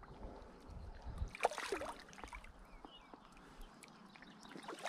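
Water splashing and sloshing as a hooked fish thrashes at the surface close to the bank, with scattered sharp splashes and a louder splash at the very end.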